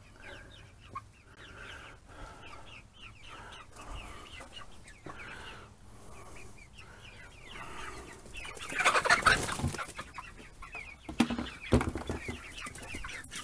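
Young chickens, about two months old, peeping and clucking in short falling calls. A loud rustle comes about nine seconds in, and two sharp knocks follow a couple of seconds later.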